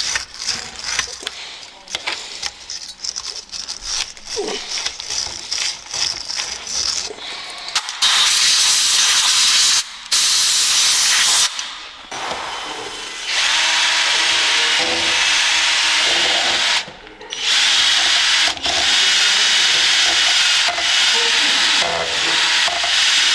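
Scratchy scraping of a wire brush on a rusty cast-iron brake caliper. About eight seconds in, a power drill starts spinning a wire brush inside the caliper's piston bore to clean off rust and deposits, running in loud bursts that stop and start again several times.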